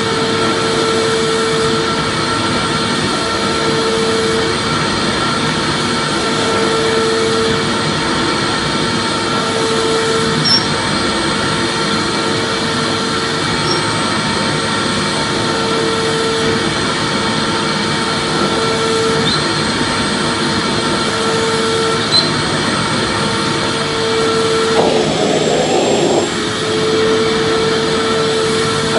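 Electric vacuum cleaner running steadily: a dense whooshing drone with a hum that swells and fades every few seconds, and a brief change in the sound near the end.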